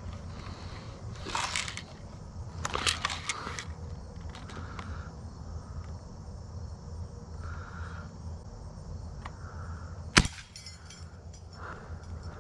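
BB gun fires once, a single sharp crack about ten seconds in, followed by a faint high ringing. Earlier, two brief clattering bursts as the gun is handled.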